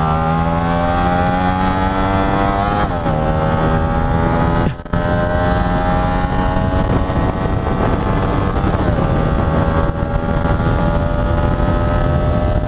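Hyosung GT125's 125 cc V-twin engine accelerating hard through the gears on a 0–100 km/h run. Its pitch climbs steadily in each gear and drops back at upshifts about 3 s and 9 s in.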